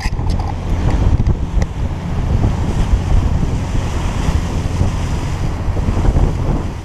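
Wind buffeting the microphone on a moving boat, over the rush of water from the hull and wake.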